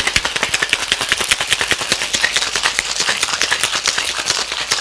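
Ice cubes being shaken hard in a metal Boston shaker tin with espresso martini ingredients: a rapid, steady rattle of ice striking the metal.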